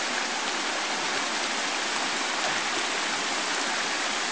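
Fast-flowing, swollen woodland stream rushing over stones: a steady, unbroken water noise.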